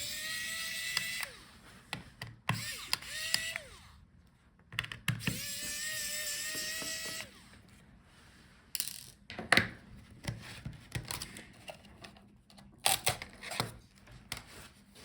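Small electric screwdriver whining in short runs as it backs tiny screws out of a laptop palmrest's touchpad mounting, the pitch dipping briefly as the bit grabs; in the second half come scattered clicks and knocks of small parts being handled.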